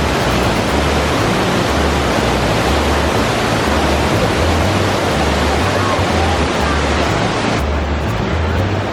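Steady rushing of Anna Ruby Falls, a double waterfall, heard close by, with a low rumble underneath. The highest part of the hiss drops away about seven and a half seconds in.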